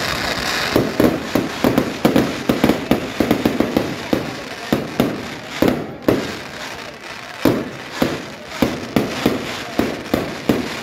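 Fireworks display: a hiss of shells launching, then a rapid string of bangs from bursting shells, several a second, with a short lull a little past halfway before the bangs resume.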